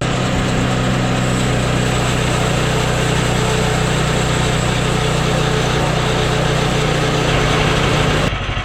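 Sawmill engine running under load while the band blade cuts through a maple log; the blade is dulled from hitting a rock in the bark, so the cut goes slowly. Near the end the high cutting hiss drops away and the engine runs on.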